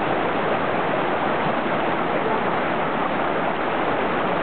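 A small forest creek rushing over a low cascade: a steady rush of water.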